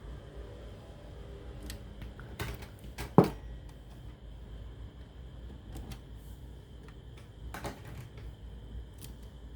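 Irregular small clicks and taps of hands working on a cassette player's plastic casing and parts with tools, with one sharp knock about three seconds in.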